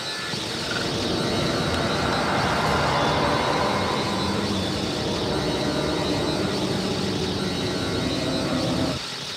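Dense, noisy electronic drone texture from an improvised experimental live set, resembling rumbling engine or aircraft noise, with faint steady high tones over it. It swells to its loudest about three seconds in, and its low rumble cuts out suddenly near the end.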